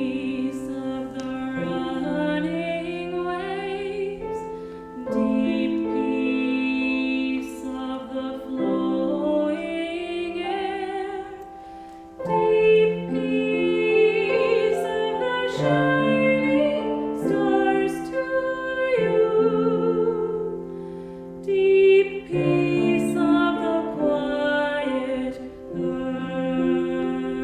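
Slow, meditative music of long-held notes changing every second or two, in places with a wavering, voice-like tone.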